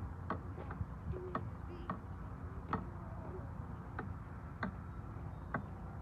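A series of sharp clicks, spaced irregularly about every half second to a second, over a faint low rumble.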